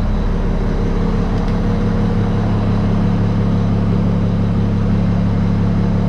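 Mack big-rig diesel engine idling steadily and evenly, purring with no miss, freshly restarted after its six EPU injector tubes were replaced and the fuel system bled of air.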